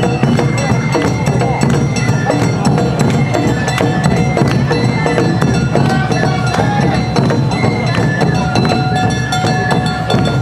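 Awa-odori festival music: bamboo flutes holding high notes over a steady beat of drums and a struck metal hand gong (kane).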